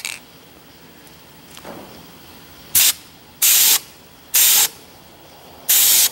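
Aerosol spray-paint can (Krylon semi-gloss Covermax) hissing in four short bursts: a brief puff, then three sprays of about half a second each, with pauses between them.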